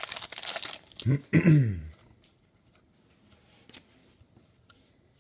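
A foil trading-card pack wrapper crinkling as the cards are slid out. About a second in comes a short wordless vocal sound, like a throat clear. After that it is quiet, with faint ticks of cards being handled.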